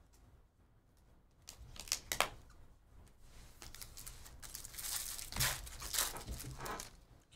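Foil baseball card pack wrappers crinkling and tearing as packs are handled and ripped open, after a few sharp clicks about two seconds in.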